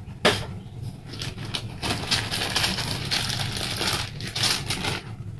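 Plastic bags crinkling and rustling as items are rummaged through and handled, with a sharp click about a quarter second in; the rustling dies away near the end.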